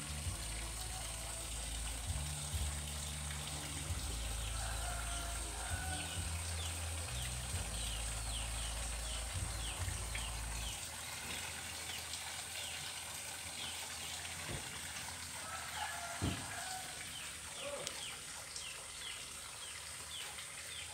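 Outdoor garden ambience: small birds chirping in quick, short falling notes through most of it, over a steady high-pitched hiss, with a few fainter lower calls. A low rumble sits on the microphone for about the first half, then stops.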